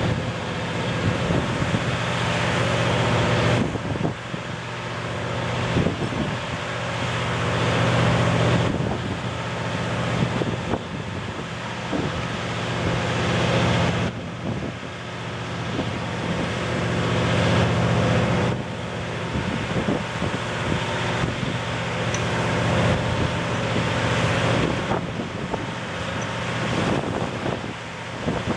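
Steady low machinery drone, like a running engine, swelling and easing every few seconds, with wind rushing on the microphone.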